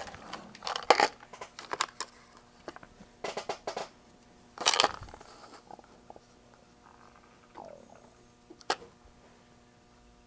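Small metal hardware clicking and rattling in a plastic parts tray as fingers pick through it: scattered sharp clicks, the loudest in the first half, with one last sharp click near the end.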